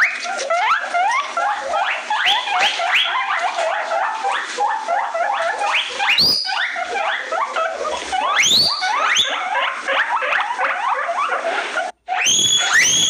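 Guinea pig wheeking: a fast stream of short rising squeals, several a second, with a few longer, higher whistles among them. It cuts out briefly near the end. This is the call that draws a guinea pig's attention.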